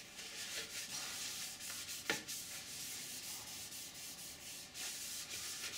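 Folded paper towel rubbed back and forth in repeated strokes over the sanded surface of a 3D-printed ABS part, with one sharp tick about two seconds in.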